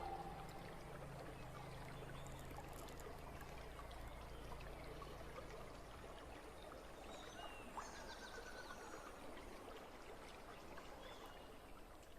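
Small river flowing: a faint, steady rush of water, with a few faint high chirps around the middle.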